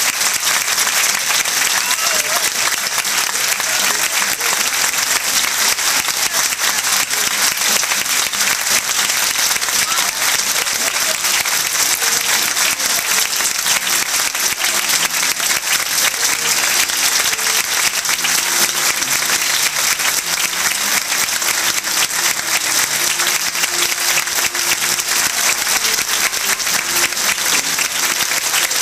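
Theatre audience applauding steadily through the curtain calls, a dense, even clapping that neither builds nor fades.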